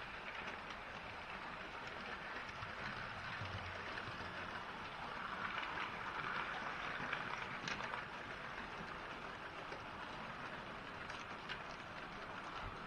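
Model railway trains running on the layout: a steady whirring, clattering noise of wheels and motors on the track. It grows louder about halfway through as a steam locomotive with its goods wagons passes close by.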